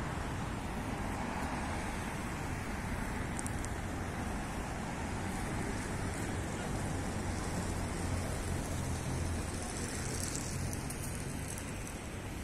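Steady low rumble of distant city traffic, with a few faint high ticks.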